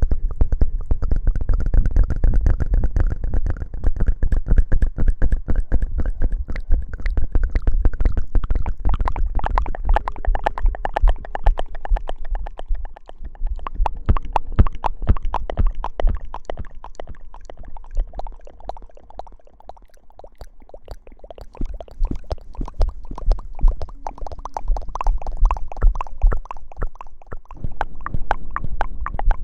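Close-miked ASMR rustling and rubbing right on the microphone: dense rapid crackling strokes over heavy low thumps and rumble. It eases off about two-thirds of the way through, then picks up again.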